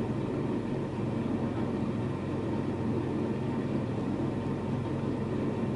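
A narrowboat's engine running steadily at cruising speed with a low, even hum, the boat under way.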